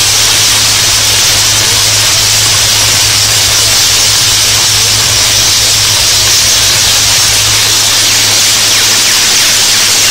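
Tesla coils discharging, their electric arcs striking the performers' handheld rods: a loud, steady crackling buzz with a constant low hum under it.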